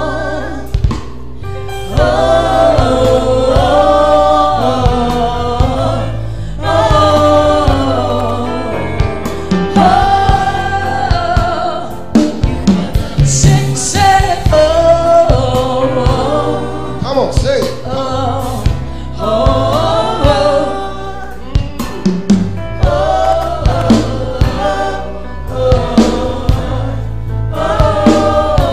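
Live gospel worship music: a woman leads the song, with backing singers joining in, over a band with bass and drum kit. The drums get busier about halfway through.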